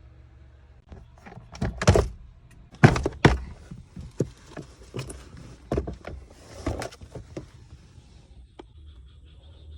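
A run of irregular plastic knocks and clacks, the loudest about two and three seconds in, lighter ones until about seven and a half seconds in: a car's interior plastic parts, such as the glovebox and filter housing, being opened and handled to reach the cabin air filter.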